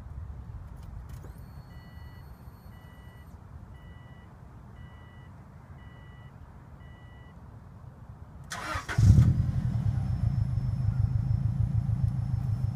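2005 Subaru Baja Turbo's turbocharged flat-four started through an aftermarket muffler. About six soft beeps come first, evenly spaced. Near the end the starter cranks briefly, the engine catches with a loud burst and settles into a steady idle with a faint high whine.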